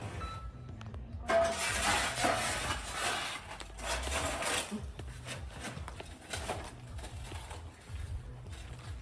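Hard pieces of binchotan white charcoal clinking and clattering against each other as they are handled, a busy run of sharp clinks that begins about a second in.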